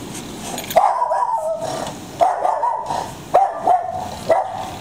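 A puggle barking five times in a row, the first two barks drawn out for most of a second at a held pitch and the last three shorter.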